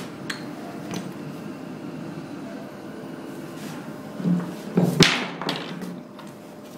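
Handling noise of a paper template being set and pressed onto a wooden handrail: faint paper rustling and light taps, with a cluster of louder handling sounds and one sharp knock about five seconds in.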